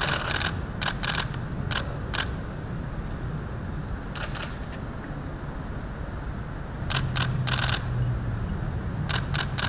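Camera shutters clicking in quick bursts of several clicks, coming in clusters every second or two, with a pause in the middle and a longer run near the end, over a steady low room hum.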